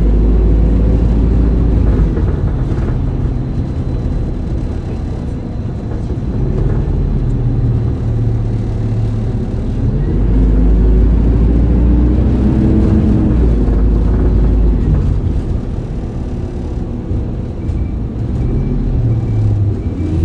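Isuzu Erga city bus's diesel engine under way, revving up and easing off as the bus pulls and slows, with the engine note rising and falling. A faint repeating beep comes in near the end.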